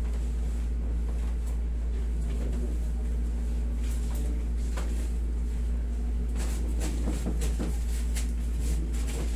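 A steady low machine hum. Soft rustling and faint clicks come in the second half, as a massage therapist lifts and bends a lying patient's leg on a padded table.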